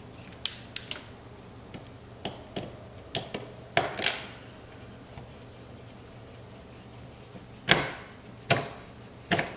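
Screwdriver working Torx screws out of a car's plastic side-mirror housing: a dozen or so irregular clicks and knocks of tool, screws and plastic, the loudest near the end.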